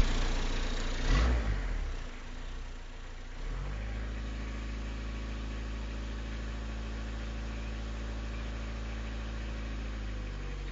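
Peugeot 309 engine revving briefly about a second in, then settling into a steady idle. The engine has a blown head gasket, according to the owner.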